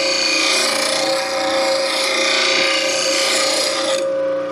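Bench grinder grinding a steel bowl gouge against its white wheel while shaping the gouge's fingernail grind: a loud, harsh grinding noise over the grinder's steady hum. About four seconds in the grinding stops as the gouge comes off the wheel, and the grinder keeps running.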